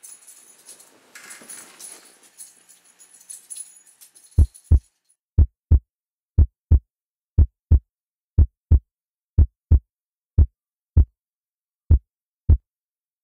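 Faint crackling hiss with a thin high whine, then a heartbeat sound effect: loud low lub-dub double thumps about once a second from about four seconds in, the beats spreading further apart near the end.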